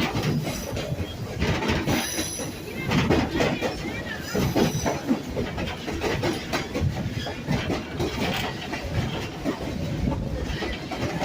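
A passenger train rolling along the track, heard from on board: a steady rumble of wheels on rails with some clacking over the joints. The wheels squeal briefly with a high-pitched screech about 2 seconds in and again about 4.5 seconds in.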